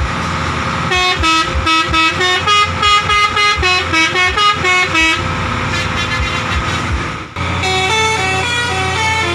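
A bus's multi-tone telolet horn playing a quick tune of short stepped notes, over the bus engine running. The horn stops for about two seconds, then a second tune starts near the end.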